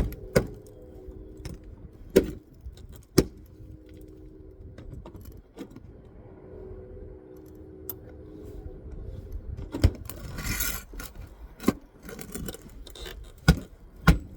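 Hands and tools working on asphalt roof shingles: irregular sharp taps and knocks with light metallic jangling, and a short scraping rustle about ten seconds in.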